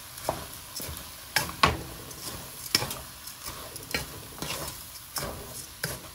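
Spatula stirring raw rice into Vienna sausage and corn frying in a pot on high heat. Irregular scrapes against the pot, about one or two a second, over a steady sizzle.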